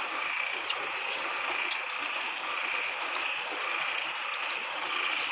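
Steady forest ambience: a continuous even hiss with a sustained high-pitched drone and a few faint clicks.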